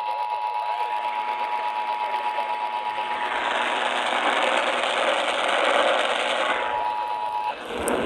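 Emergency Alert System two-tone attention signal coming through a radio speaker: a steady chord of two tones. A burst of hiss covers it in the middle, and the tone cuts off near the end.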